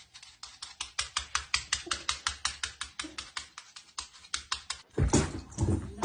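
A quick, even run of sharp clicks or taps, about five a second, like keyboard typing, followed about five seconds in by a louder burst of rustling noise.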